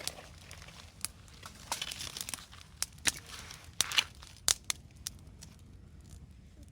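Wood fire crackling: irregular sharp pops and snaps, some with a brief hiss.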